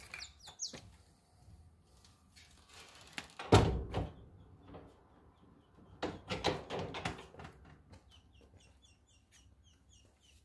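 A loud knock about three and a half seconds in and a cluster of knocks and rustles a couple of seconds later. Near the end comes a run of small high bird peeps, two or three a second.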